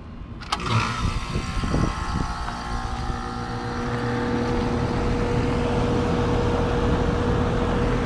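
Rheem heat pump outdoor unit starting up: a sharp clack as the disconnect is pushed in about half a second in, then the compressor's steady hum and the condenser fan spinning up, growing louder and settling into a steady run. It is running again on a newly replaced contactor, whose pitted contacts had kept it from starting.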